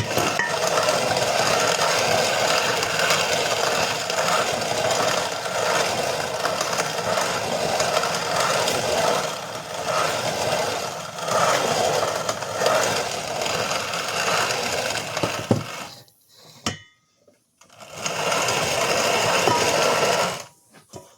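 Hand-cranked grain mill grinding kamut kernels into flour: a steady gritty grinding with a regular pulse about once a second as the crank turns. It stops about 16 seconds in, with a couple of knocks, then grinds again for a few seconds before stopping near the end.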